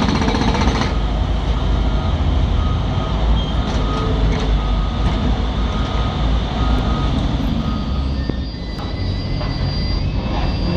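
Heavy earthmoving machine's diesel engine running steadily, a loud low rumble, with faint high tones coming and going over it.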